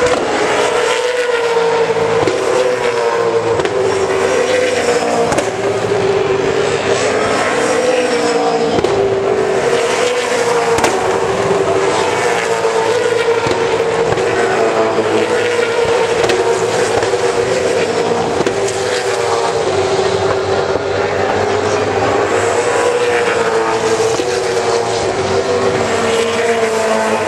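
V8 Supercars' 5-litre V8 engines racing past at high revs, one continuous engine note that rises and dips slightly as the cars lap by.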